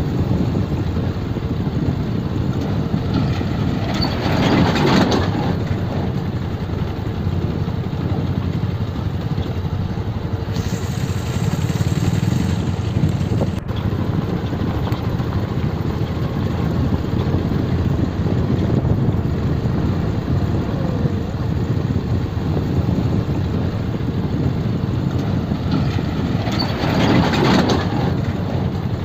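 Motorcycle engine running at low speed while riding over a rough, rutted dirt road, a steady rumble with two louder swells, about four seconds in and again near the end.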